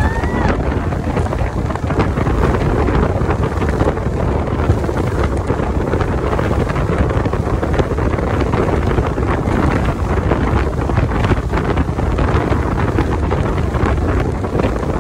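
Loud, steady wind rush buffeting the microphone over the noise of an open speedboat under way at speed.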